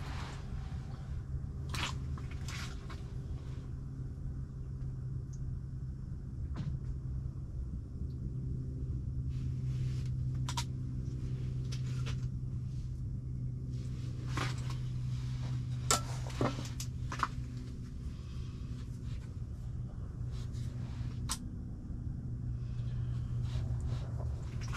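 Scattered light clicks and knocks of fishing gear being handled, about a dozen, the sharpest about two-thirds of the way through, over a steady low hum.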